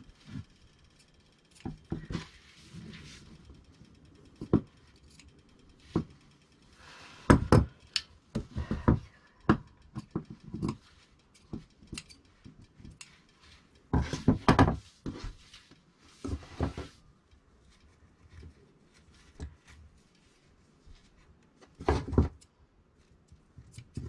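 Intermittent handling noise at a cutting table: woven fabric rustling as cut pieces are moved, with scattered clicks and knocks of shears and tools against the table top, in several bursts with pauses between.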